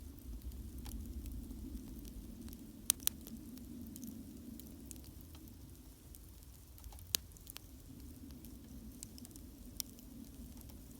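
Wood campfire burning, with a steady low rush of flame under light crackling. A few sharper pops stand out: a close pair about three seconds in, one near seven seconds and one near ten.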